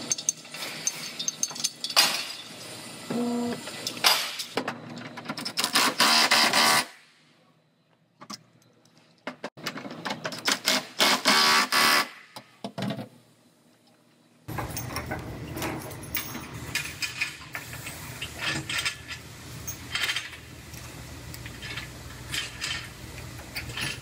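Body-shop clamp and chain work in several short takes: a Milwaukee cordless impact wrench rattling as it tightens a pulling clamp onto a damaged rear body panel, with metal clanks and clicks of clamps and chain. Near the end a steady low hum runs under the clicks.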